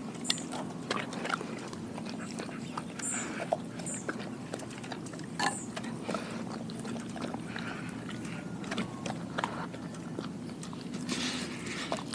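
Doberman chewing and crunching whole raw fish (mackerel pike and sardines) from a glass bowl, with irregular sharp crunches and clicks.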